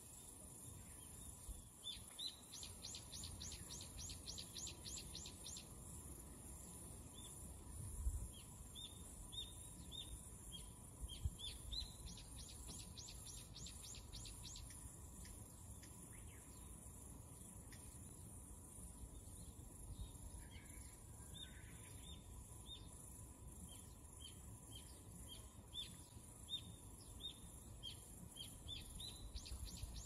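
Faint, high bird calls. Runs of quick falling notes come near the start, midway and at the end, and short rising chirps come about once a second in between. Under them is a low background rumble with a couple of soft thumps.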